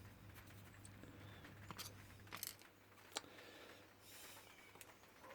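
Faint, scattered small metallic clicks and taps of a gutted padlock's pins and parts being handled, with three or four sharper clicks about two to three seconds in.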